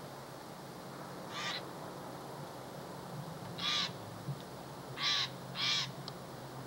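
Steller's jay giving four short, harsh, raspy calls, the last two in quick succession.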